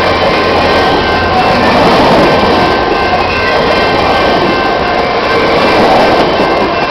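Stainless-steel passenger cars of VIA Rail's Canadian train rolling past close by: a loud, steady rumble and rattle of wheels on the rails.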